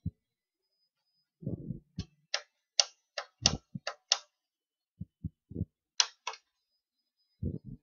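Irregular sharp clicks and dull knocks close to the microphone, with silence between them. A quick run of about six clicks comes in the middle and two more follow a couple of seconds later.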